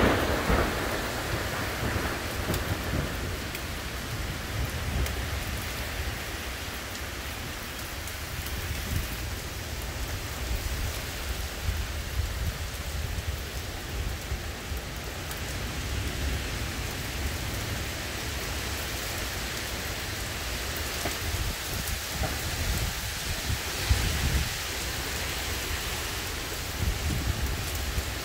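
Heavy rain pouring steadily, with thunder rumbling low beneath it. A loud thunderclap is dying away over the first couple of seconds, and another roll of thunder swells about 24 seconds in.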